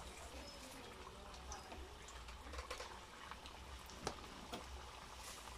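Tortita de chaya (chaya and masa fritter) frying in hot oil in a skillet: a faint steady sizzle scattered with small pops, one sharper pop about four seconds in.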